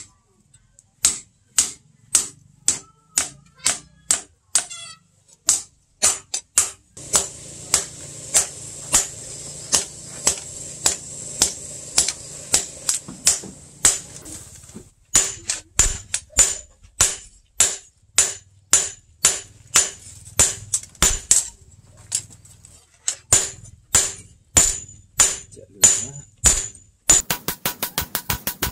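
Blacksmith's hand hammer striking a red-hot steel billhook blade on a steel post anvil, about two sharp, ringing blows a second. A steady hiss sits behind the blows for several seconds in the middle, and near the end the strokes turn into a quicker run of lighter taps.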